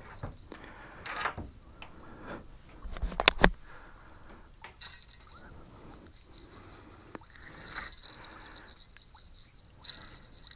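Crickets chirping in short spells, over scattered clicks and knocks of a fishing rod and reel being handled as line is reeled in on a hooked fish. The loudest is a quick cluster of clicks about three seconds in.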